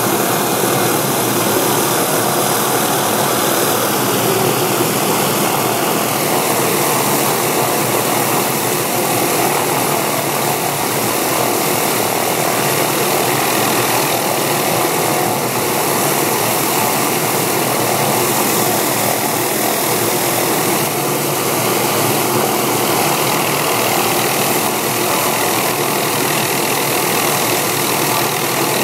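Hughes/MD 369E helicopter's Allison 250 turboshaft running steadily on the ground after start-up, its main rotor turning.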